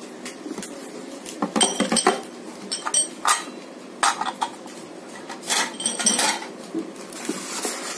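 Metal and plastic meat-grinder attachments clinking and knocking together as they are lifted and handled, in four short clusters of clicks with a faint metallic ring.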